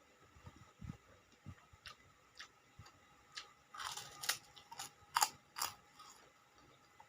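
Close-miked eating: soft chewing sounds, then a cluster of sharp, crisp crunches about four to six seconds in, as krupuk crackers are bitten and chewed.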